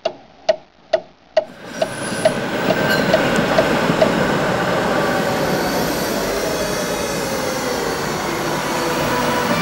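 Countdown-leader beeps, about two a second, fading out over the first few seconds as the running noise of a passing tram rises. The tram's rolling noise then holds steady, with a slowly falling whine in the middle.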